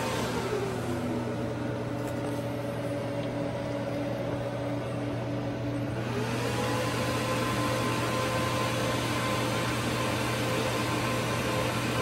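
Rack server's cooling fans running with a steady whir over a low hum, their pitch dropping just after the start, rising again about six seconds in and holding, then starting to fall near the end: fan speed ramping up and down as the machine starts up.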